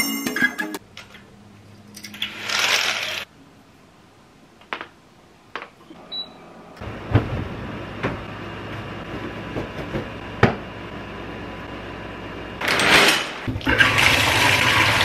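Water running from a bathroom sink tap in short bursts, with small knocks and clatters between, while teeth are brushed and rinsed. The loudest rushes of water come near the end.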